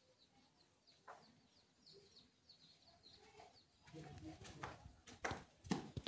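Rose-ringed parakeet calling: faint short high chirps at first, then from about four seconds in louder, harsh squawks and clicks, the loudest near the end.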